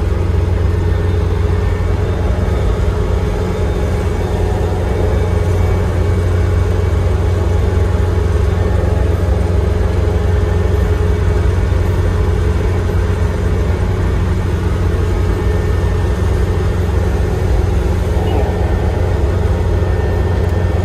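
Kubota ER470 combine harvester's diesel engine and machinery running steadily, heard from inside the cab: a loud, even low drone.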